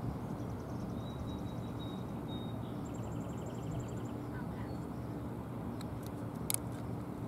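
Airbus EC-135 helicopter's twin turbine engines running on the helipad, a steady drone with several fixed low tones. Birds chirp in rapid trills over it during the first half, and a few sharp clicks come near the end.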